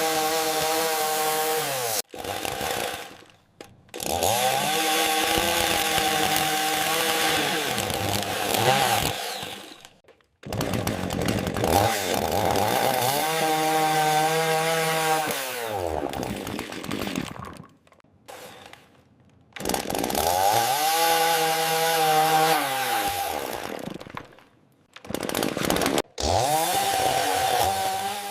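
AI-generated chainsaw sound: the engine note sags and recovers in pitch, as a saw does when it bites into a cut and comes back up. It comes as a string of short clips that start and stop abruptly, with brief gaps between them.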